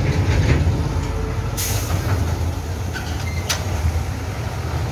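Small electric drum concrete mixer turning with a steady low rumble while it mixes concrete. A short hiss comes about a second and a half in, and a single sharp clink a little past the middle.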